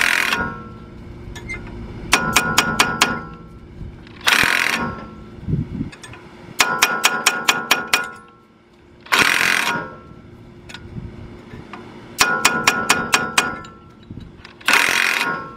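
Quick runs of hammer taps on a steel punch, alternating three times with short bursts of an impact wrench, as a new wheel stud is pressed into the hub. Tapping the back of the stud while the wrench pulls it in through a lug nut takes the stress off the nut so its threads don't strip.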